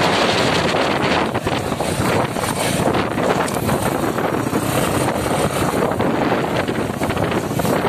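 Motorcycle riding along a sandy dirt road, heard from the passenger seat: a steady, loud rush of wind buffeting the microphone over the running engine and tyres.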